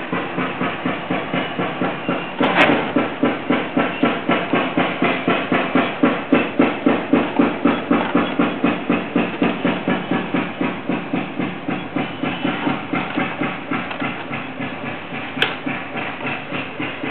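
A machine chugging in a steady rhythm of about three beats a second, with a sharp click about two and a half seconds in and another near the end.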